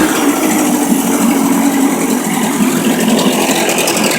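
Freshly rebuilt boat motor running steadily on a test setup, with an even engine drone.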